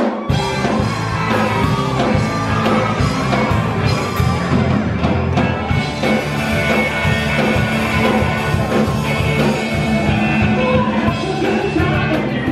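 Live rock band music, with bass, drums and keyboard, and a woman singing into a microphone. The music begins abruptly just after the start.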